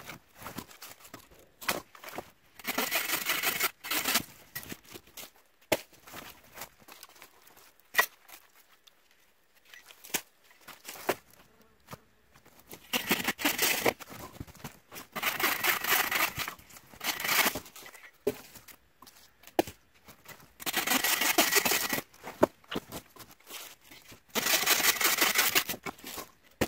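Hand saw cutting through branches in six short bouts of rapid strokes, each lasting a second or two. Scattered knocks and snaps of wood come between the bouts as the poles are handled.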